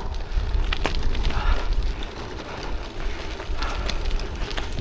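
Gravel bike tyres rolling over a firm grassy track, an even crackle with scattered small ticks, over low wind rumble on the microphone.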